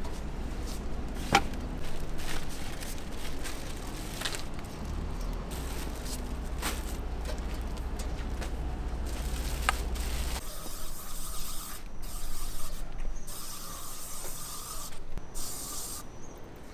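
A garden hose spray nozzle hissing in short on-and-off bursts, from about two-thirds of the way through. Before that there is a low steady rumble with a few sharp knocks.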